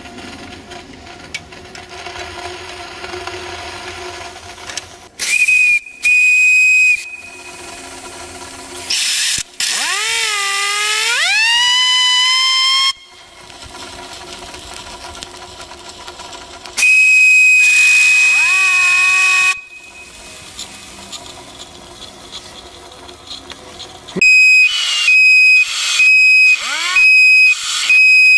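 Brass steam whistle on a miniature live-steam traction engine, blown repeatedly. There are two short blasts, then a long blast that slides up in pitch as it opens fully, and later another long blast. Near the end comes a run of about six quick short toots.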